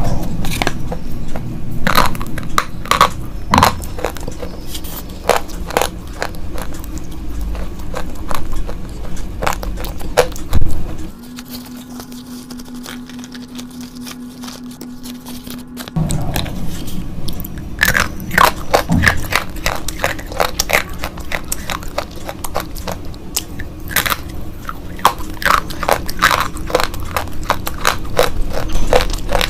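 Slate pencils being bitten and chewed, a dense run of sharp crunches and cracks. About eleven seconds in, the crunching stops for some five seconds, leaving only a low steady hum, then resumes.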